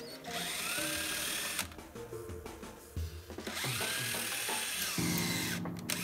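DeWalt 18-volt cordless drill running as it bores into a rusted-solid bolt on a cast-iron bracket to split it, with background music playing.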